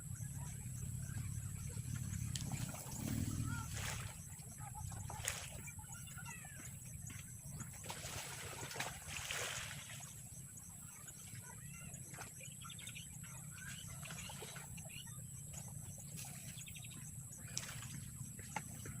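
Outdoor ambience: a steady low background rumble with faint bird chirps a few times.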